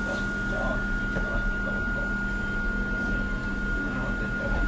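Hakone Tozan Railway Moha 1 electric car standing still, its onboard electrical equipment giving a steady hum with a constant high whine over a low rumble.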